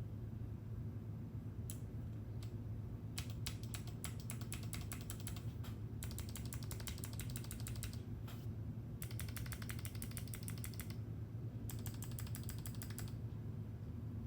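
Mechanical keyboard with linear switches, in an Alice-layout case with a top-mounted polycarbonate plate, being typed on. A couple of single keystrokes come first, then rapid runs of keystrokes separated by short pauses.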